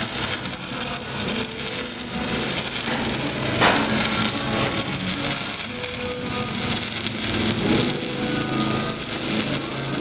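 Stick (shielded metal arc) welding arc at about 95 amps on a 3.2 mm (1/8") rod, crackling and sizzling steadily as the rod burns. One louder crack comes a little over a third of the way in.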